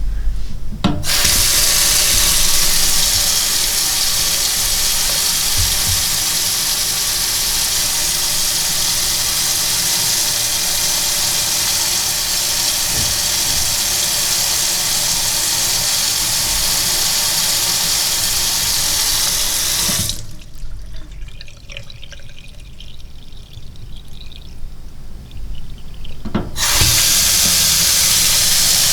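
Water tap turned on about a second in, running with a steady hiss, then shut off about twenty seconds in, leaving a quieter, uneven sound, and turned on again near the end.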